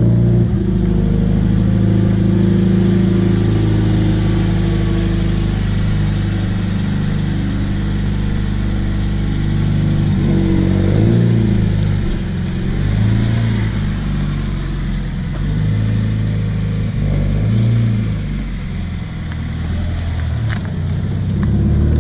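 Car engine running, with several short rises and falls in revs about halfway through.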